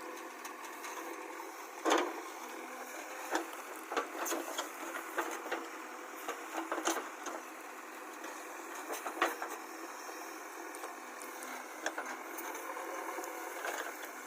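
An engine running steadily in the background, with scattered knocks and clatter; the loudest knock comes about two seconds in.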